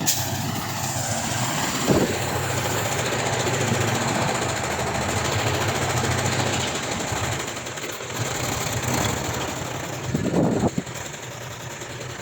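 Heavy diesel earthmoving machinery running with a rattling, clattering engine note that eases off about two-thirds of the way through, with a couple of sharp metallic knocks.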